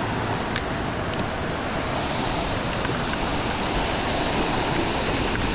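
Steady rushing roar of water pouring over a creek waterfall.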